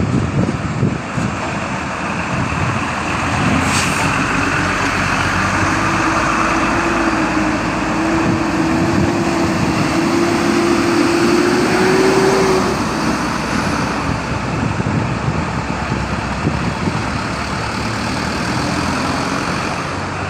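Heavy trucks driving off a ship, their diesel engines running loudly. One engine note climbs slowly and grows louder over several seconds as a truck pulls away. There is a short hiss about four seconds in.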